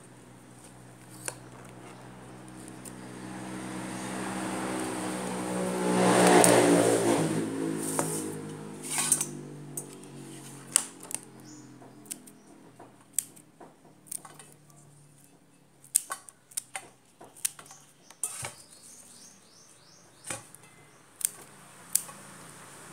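Scissors snipping through kangkong (water spinach) stems, a series of short sharp clicks through the second half. Before the snips, an engine hum swells and fades like a passing vehicle, loudest about six seconds in.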